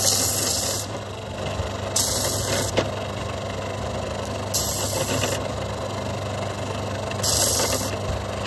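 Benchtop belt-and-disc sander's motor running with a steady hum, while a resin piece is pressed against its fine 320-grit sanding disc four times, each contact a short hissing grind of under a second, about every two to three seconds.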